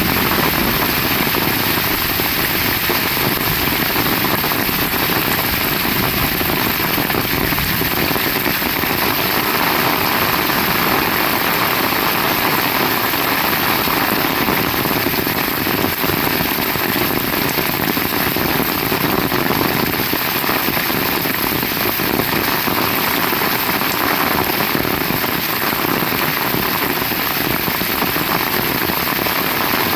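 Heavy rain falling steadily in a dense, even downpour.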